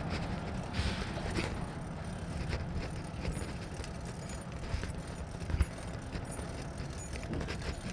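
Footsteps of someone walking on pavement, an uneven run of light knocks over a continuous low rumble on the microphone.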